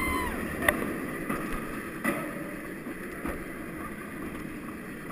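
Steel inverted roller coaster train running through its track, heard from a rider's chest: a steady rush of wind and track rumble with a few sharp knocks. At the very start a rider gives a brief rising-and-falling whoop.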